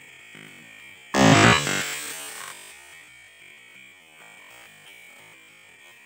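A single shot from a scoped rifle, sudden and loud, about a second in, with a ringing tail that fades over a second or so. Night insects keep up a steady faint high drone.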